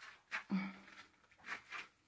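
Footsteps scuffing and crunching, about four short steps, from someone picking their way across a rough construction-site floor.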